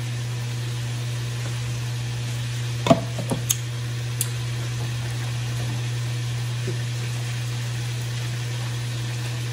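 Steady low electric motor hum, with a few light clicks about three to four seconds in as a straw is stirred in a glass mug of juice.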